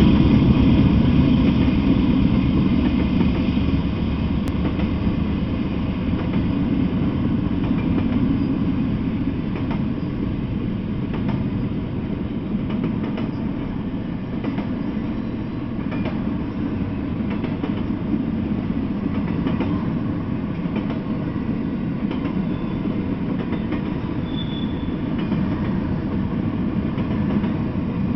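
Freight train of intermodal flatcars and well cars rolling past: a steady rumble of steel wheels on rail with rapid, irregular clicks of wheels over rail joints, slightly louder at the start.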